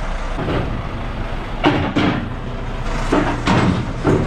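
Scania truck's diesel engine running at low speed as the truck is driven slowly down a low-loader trailer's loading ramps. Several short, louder noises stand out over the engine.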